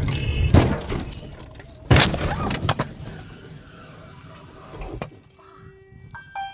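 Head-on car collision recorded from a dashcam: two loud crashes about a second and a half apart, with a few smaller clattering knocks just after the second.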